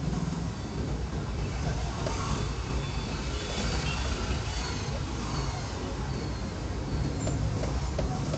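Steady engine and road rumble of a car driving slowly in heavy traffic, heard from inside the cabin.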